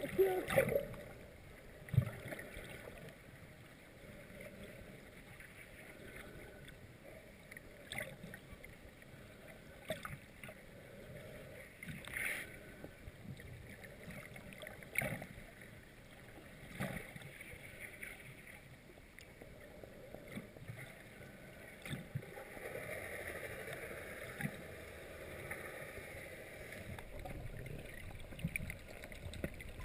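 Underwater ambience heard through a GoPro Hero 2's sealed waterproof housing: a steady low wash of water noise with scattered short knocks every few seconds.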